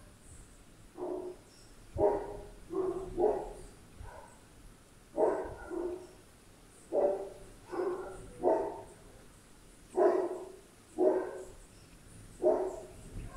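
A dog barking repeatedly: short barks about once a second, some in quick pairs.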